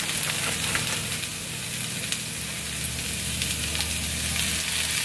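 Diced potatoes, peppers and onions sizzling in an oiled nonstick frying pan on low heat: a steady hiss with small crackles.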